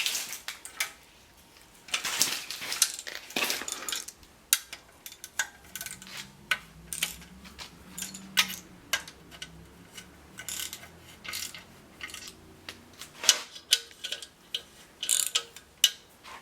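Hand ratchet clicking in irregular runs as 10 mm exhaust manifold bolts are backed out, with sharp metal clinks of the socket and bolts.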